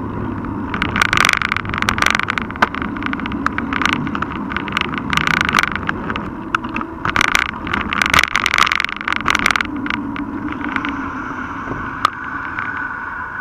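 Riding noise picked up by an action camera bolted to a mountain bike's handlebars: a steady rumble of tyres and wind. Clusters of sharp rattling and knocking come through the mount as the bike jolts over rough asphalt.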